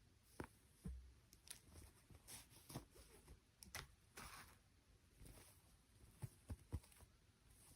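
Faint handling noises: scattered light clicks and taps with a few brief rustles, a quick cluster of sharper ticks near the end.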